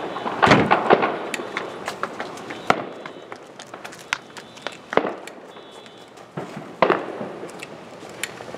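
Firecrackers and fireworks popping and cracking at irregular intervals: a quick cluster of sharp bangs in the first second, then single cracks every second or two.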